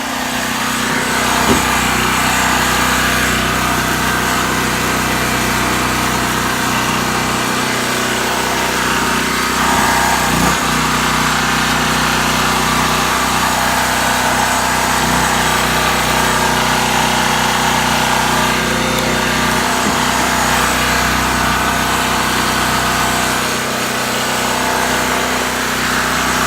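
An electric power tool running steadily off a Powerhorse 4000 portable generator, switched on right at the start and off near the end, with the generator's engine running underneath it under load.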